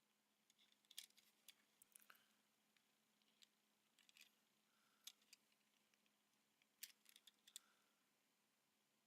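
Faint scattered clicks and light rustles of hands handling a die-cast Tomica minicar and its packaging, with a cluster of quick clicks near the end.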